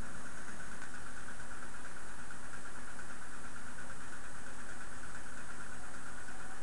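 Water fizzing and bubbling steadily through a small glass dab rig's fritted-disc percolator as smoke is drawn through it in one long, unbroken pull.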